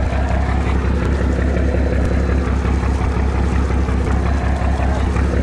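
Boat engine running steadily with an even, deep hum.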